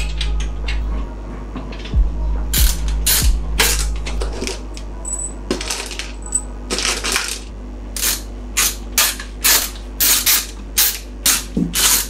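Small metal PC-build hardware (screws and mounting parts) clinking and scraping as it is handled during radiator mounting: a few scattered clinks, then a quick run of them, two or three a second, in the second half.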